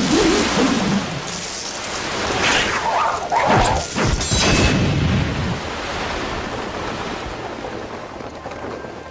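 Film sound effects of wooden-sword training: swishing swings and rushing wind, with a cluster of whooshes and heavy hits about three to four seconds in, then a steady rush of wind that slowly fades.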